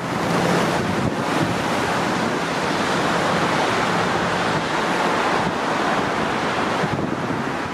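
Steady rushing wind noise buffeting the camera microphone outdoors, with road traffic mixed in. It starts abruptly and holds level throughout.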